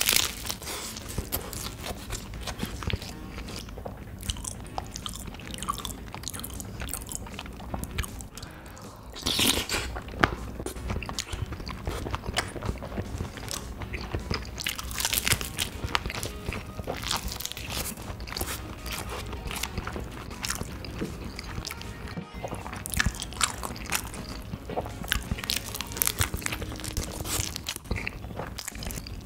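Close-miked eating: a person biting and chewing food with wet clicks and crunches in quick irregular succession, with music playing underneath.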